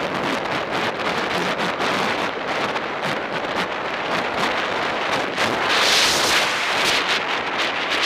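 Wind rushing over the microphone of a camera on a racing bicycle moving at speed, a steady loud roar that swells louder and hissier about six seconds in.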